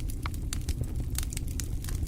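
Fireplace fire burning: many irregular sharp crackles and pops over a steady low rumble of the flames.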